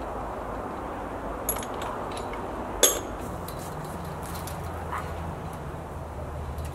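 A chain-link fence panel being handled, giving a few light metal clicks and clinks, the sharpest about three seconds in, over steady outdoor background noise.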